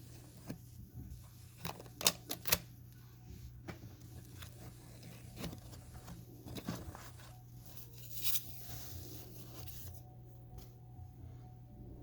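Unboxing handling noises: scattered clicks and knocks, with a quick run of sharp clicks about two seconds in and a brief rustle of packaging about eight seconds in, over a steady low hum.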